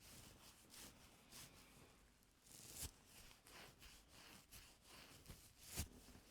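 Ear-cleaning tools scraping and brushing inside an ear close to the microphone: faint soft scratches and rustles, with two louder swishes, one near the middle and one near the end.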